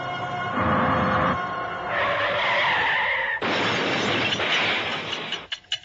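Car tyres screeching in a skid, a wavering high squeal, then a sudden loud burst of noise about three and a half seconds in that lasts about two seconds, like a crash.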